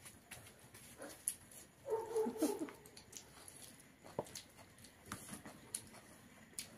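Metal serving spoon clicking against plastic bowls and plates at a meal, in scattered single clicks. About two seconds in, a short cry that bends in pitch stands out above them.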